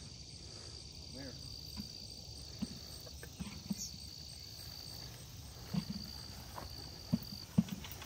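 Scattered, unevenly spaced soft thuds of steps on plowed ground under a steady high insect drone. The drone breaks off twice.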